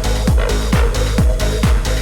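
Trance music played loud over a club sound system, recorded live from the crowd. A deep four-on-the-floor kick drum hits about twice a second under sustained synths and bass.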